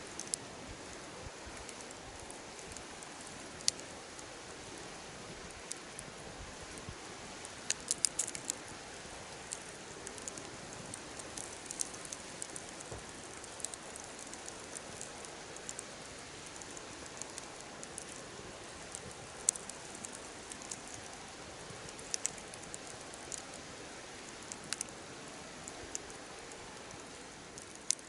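Wood campfire burning with a steady hiss and scattered sharp crackles and pops, several in quick clusters.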